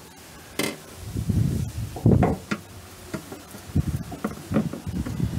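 Metal wiper motor and linkage assembly being handled and set into place against the car's scuttle panel: a series of irregular clunks and knocks, the loudest about two seconds in, followed by lighter taps and rattles.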